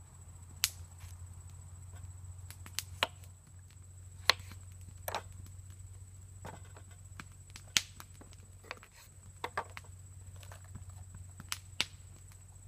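Opinel folding knife slicing zucchini and potato on a bamboo cutting board: about a dozen sharp, irregularly spaced clicks as the blade cuts through and taps the board.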